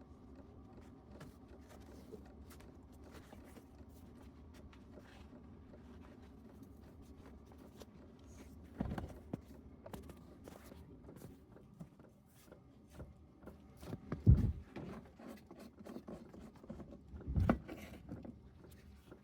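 Faint scattered clicks and rustling with three dull thumps, the loudest about two-thirds of the way through.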